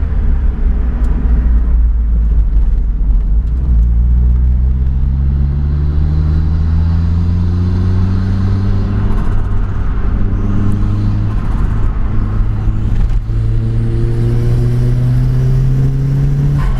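Turbocharged car engine accelerating. Its note holds steady for a few seconds, then climbs slowly and evenly in pitch through a long gear. About thirteen seconds in it drops at a gear change, then climbs again.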